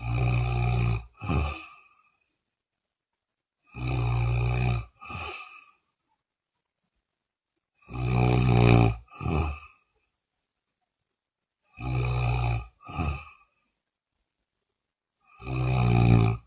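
A woman snoring, about one snore every four seconds: five in all, each a rough snore of about a second followed at once by a shorter second sound, with silence between.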